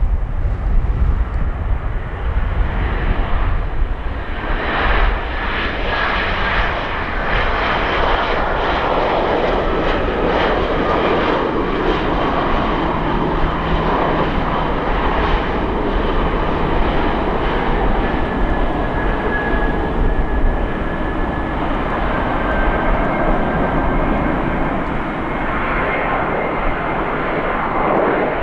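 Airliner's engines passing close by: a loud, steady rush that swells about four seconds in and holds, with a whine that slides down in pitch as the aircraft goes past.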